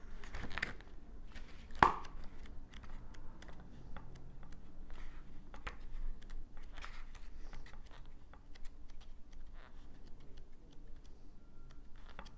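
Pages of a paperback guidebook being leafed through by hand: soft paper rustles and light taps, with one sharper click about two seconds in.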